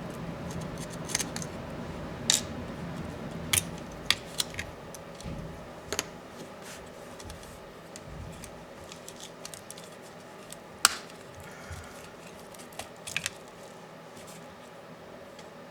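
Small hand tools and parts of a Dell Inspiron 15 7586 laptop being handled during disassembly: scattered sharp clicks and light taps, the loudest about eleven seconds in, over a low hum that fades after about six seconds.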